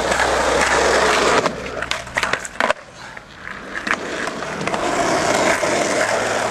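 Skateboard wheels rolling over asphalt, with a few sharp clacks of the board about two seconds in, then rolling again.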